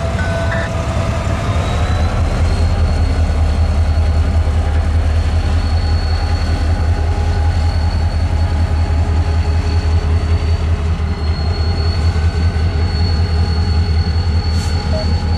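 Florida East Coast diesel freight locomotive running, a steady, loud, deep engine drone with a thin high whine above it that rises slightly about two seconds in.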